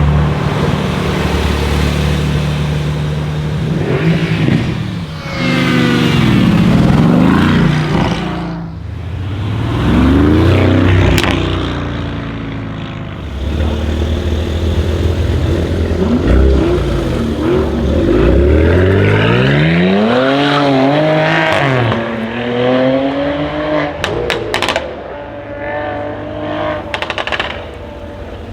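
Brabus-tuned Mercedes-AMG S63 Coupe's twin-turbo V8 accelerating hard several times, the revs sweeping up and dropping back between pulls. A few sharp exhaust cracks come about 11 seconds in and again a couple of times near the end.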